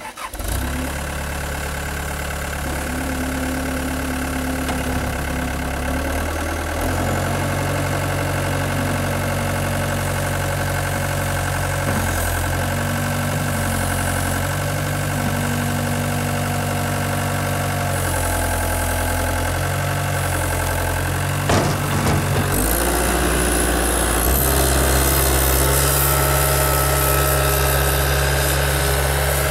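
Caterpillar 236B skid steer loader's diesel engine running as the machine works, its note shifting up and down in steps several times. There is a sharp knock about 21 seconds in.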